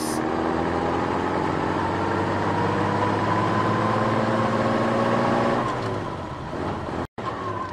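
Heavy truck engine running steadily, its pitch rising slowly as it pulls along, then fading away about six seconds in.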